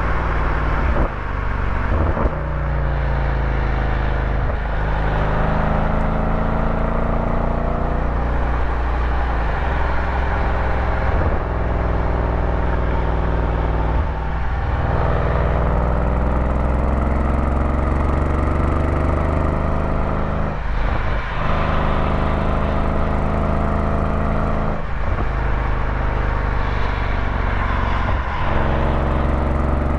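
Engine of a moving road vehicle running under load. Its pitch climbs over several seconds and then drops sharply, again and again, about eight times.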